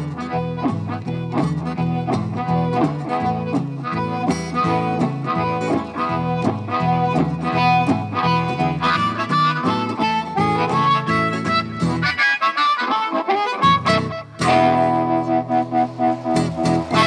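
Harmonica playing a blues solo over an acoustic guitar keeping a steady rhythm. About twelve seconds in the guitar's low notes drop out, then both come back with held notes and a few closing strummed chords that end the song.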